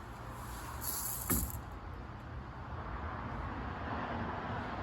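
Steady hiss of rain falling around a porch. About a second in there is a brief scrape and a single knock.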